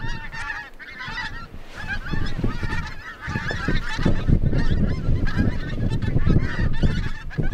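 A large flock of pink-footed geese calling overhead, many short high honks overlapping in a constant clamour that grows louder after about three seconds, with wind rumbling on the microphone.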